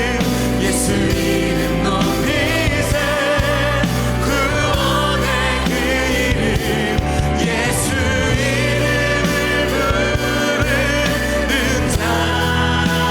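Live worship music: a church praise team singing with vibrato over a full band accompaniment.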